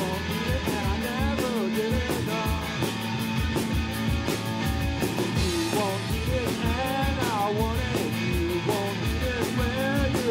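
Live punk rock band playing: a steady drum beat under guitar, with a melody line bending up and down over it.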